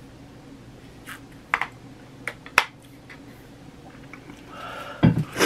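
Drinking from a water bottle: a few short swallowing clicks and gulps, then a louder rushing sound ending in a sharp burst near the end.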